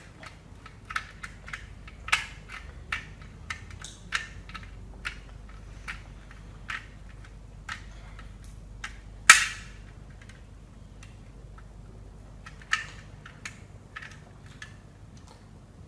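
Irregular sharp clicks and knocks, several a second at first and sparser later, with one louder knock about nine seconds in.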